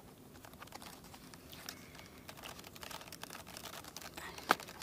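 Faint clicks and rustles of foam and plastic parts being handled as the horizontal stabilizer is fitted to a foam RC plane's tail, with one sharper click near the end.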